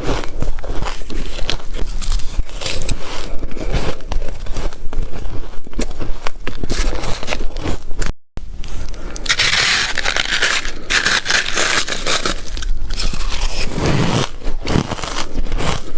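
Ice being bitten and chewed close to the microphone: dense, loud crunching and cracking. A hard cut about eight seconds in leads to a brighter, hissier crunch of another bite, then more crunching.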